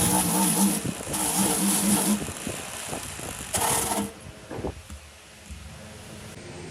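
A motor vehicle engine running loudly in spells, its pitch wavering, then dying away about four seconds in, leaving a few light knocks.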